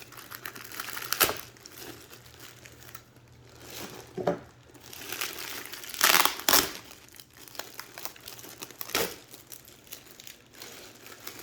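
Crinkling and rustling of packaging wrap being handled and pulled off a boxed space heater, with a few louder crackles about a second in, around six seconds in and near nine seconds.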